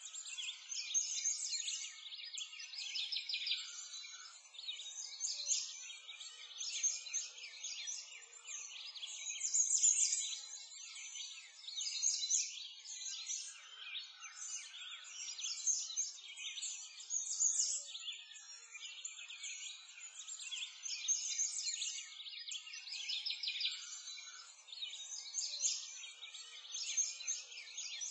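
Many small birds chirping and trilling at once, a steady high-pitched songbird chorus with nothing low underneath.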